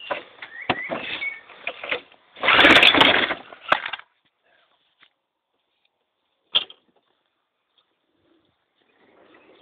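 One pull on a Briggs & Stratton lawn mower's recoil starter about two and a half seconds in, a loud rasping burst under a second long, with handling clatter before it and a single click a few seconds later. The engine does not fire or run: it is out of petrol.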